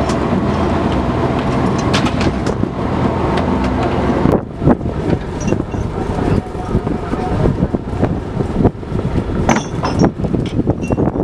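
Fishing boat's engine-driven deck winch running with a steady mechanical drone. About four seconds in it cuts off suddenly to wind and sea noise with scattered knocks.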